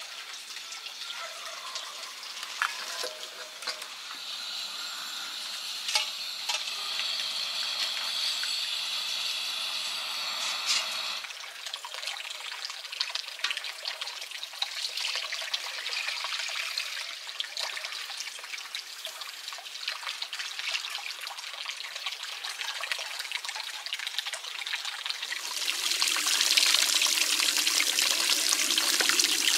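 A shallow stream of water running over stones, loudest in the last few seconds. Before that there is a fainter steady hiss with a few scattered clicks and taps.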